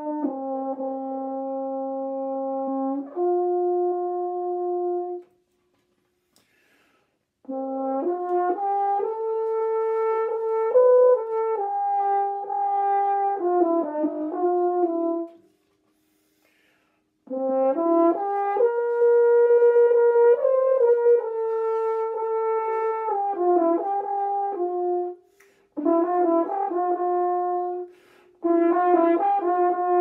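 Unaccompanied French horn playing a slow melody in long held notes. The phrases are broken by silent pauses for breath, about five and about fifteen seconds in.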